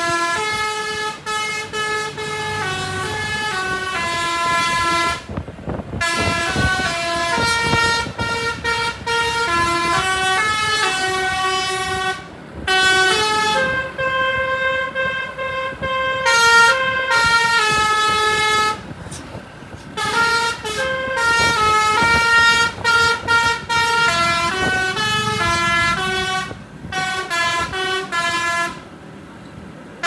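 A coach's basuri telolet air horns played by hand from a pianika-style keyboard, picking out a popular song as a melody of short and held notes, with several brief pauses between phrases.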